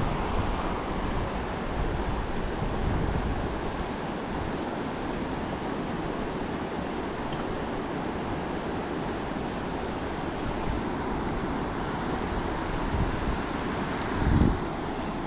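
Steady rushing of river rapids, with wind buffeting the microphone in low gusts, one short gust about fourteen seconds in.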